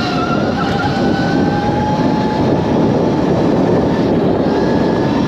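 SRPNT electric dirt bike ridden fast, its motor whine rising slightly in pitch over the first couple of seconds, under heavy wind rush on the microphone and tyre noise on loose dirt.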